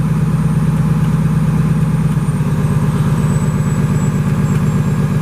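Cummins ISC inline-six diesel engine of a Freightliner M2 106 truck idling steadily at about 1,000 rpm as it comes up to speed after start-up, heard from inside the cab.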